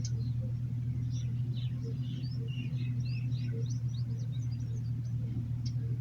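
Birds chirping in many quick, short, high notes, over a loud steady low hum.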